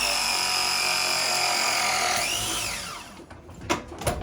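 Power drill running at speed with a high steady whine, then released about two seconds in, its pitch falling away as it spins down. A couple of sharp clicks follow near the end.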